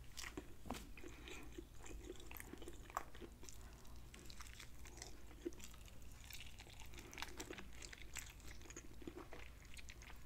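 Faint close-up eating sounds: biting into and chewing the meat of a bone-in, honey-glazed chicken thigh, with soft wet smacks and small mouth clicks.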